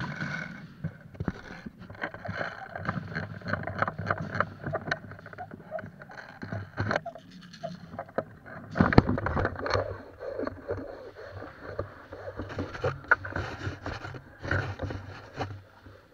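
Rustling, scraping and knocking of clothing and gear against a moving camera. The knocks come irregularly, with a louder cluster about nine seconds in.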